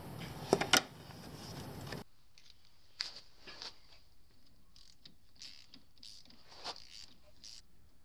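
Scattered light clicks and rattles of hand tools and parts being handled while working under an ATV, with two sharper clicks in the first second and softer irregular clicks after.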